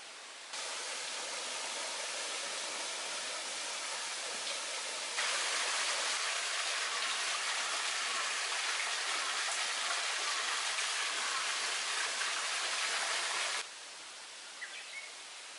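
Steady rush of running or falling water. It starts abruptly about half a second in, gets louder about five seconds in, and cuts off suddenly near the end.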